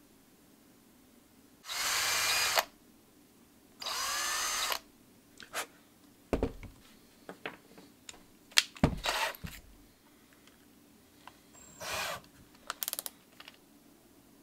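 Cordless drill run in two short bursts of under a second each, the second spinning up as it starts, drilling into a carved wooden lure body. Scattered clicks and knocks of small parts and tools handled on a wooden workbench follow, with a shorter drill burst near the end.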